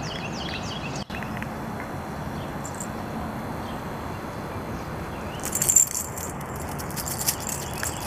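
Steady outdoor background noise with a bird chirping in quick repeated notes during the first second. From about five and a half seconds in, rapid light metallic jingling, loudest just after it starts, from the collar and leash hardware of a dog being walked.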